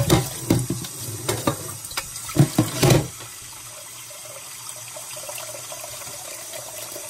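Water running from a kitchen tap, with knocks and clatter over the first three seconds, then a steady run of water.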